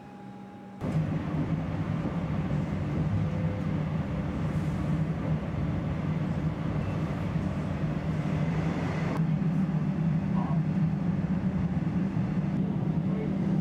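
Melbourne suburban electric train running, its steady rumble and low hum heard from inside the carriage. The noise starts abruptly about a second in, after a quieter stretch of steady hum.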